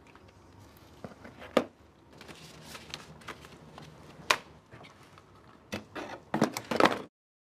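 Sharp knocks and taps of objects handled on an office desk: a few single ones, then a quick cluster of clattering near the end. The sound cuts off abruptly to dead silence.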